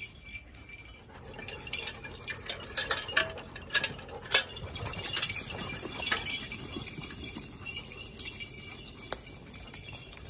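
Footsteps and dogs' paws on a gravel path, with scattered sharp clicks and jingles that are loudest in the first half, over a steady high drone of insects.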